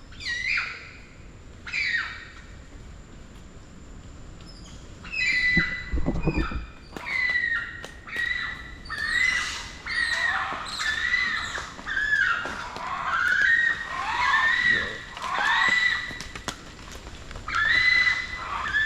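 Spider monkeys calling: high calls that rise and fall in pitch, two near the start and then a run of them about once a second through the second half. A low thump sounds about six seconds in.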